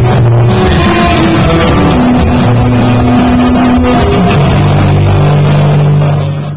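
Loud rock band playing with electric guitars and sustained low bass notes, cutting off abruptly just before the end.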